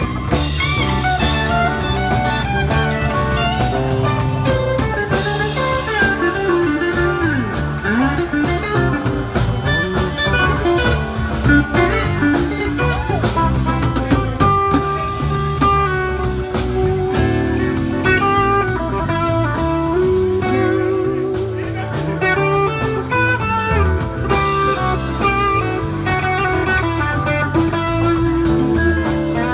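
Live band playing: electric guitars over a drum kit, with the SG-style electric guitar up front.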